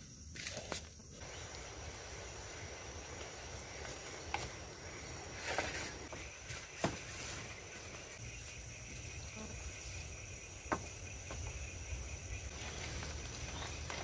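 Forest insects, crickets among them, chirring steadily in a high thin tone, with a few sharp clicks and knocks scattered through, the loudest a rustling knock about five and a half seconds in.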